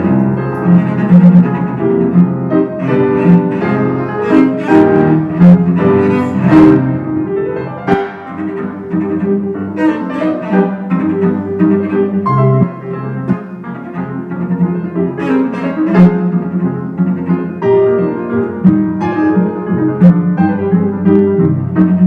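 Classical chamber music: a bowed cello playing sustained melodic lines over piano accompaniment.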